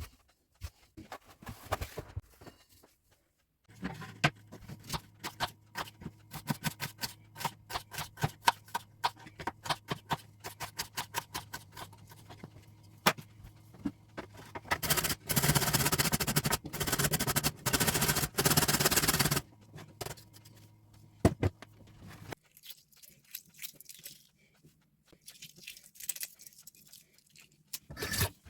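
Kitchen food-preparation sounds: a long run of quick taps and clicks of utensils, over a low steady hum. About halfway through, a loud, even noise runs for roughly four seconds with a short break in the middle, then stops.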